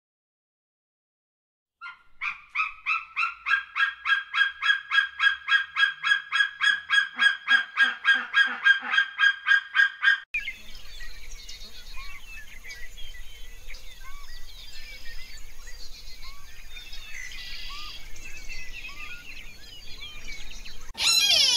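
A bird calling a fast run of evenly repeated shrill notes, about five a second, for some eight seconds and stopping abruptly. Then softer scattered bird chirps over a steady hiss, and a loud domestic goose honk near the end.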